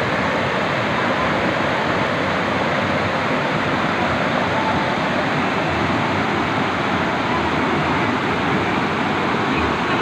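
Steady rush of a waterfall and the stream cascading over boulders below it, a loud, even roar of falling water.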